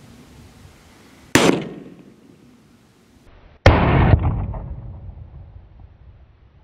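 A .218 Bee rifle shot from a Winchester Model 43 cracks about a second in. The same shot is heard again about two seconds later, slowed down for a slow-motion replay: duller, drawn out and with a long fading tail.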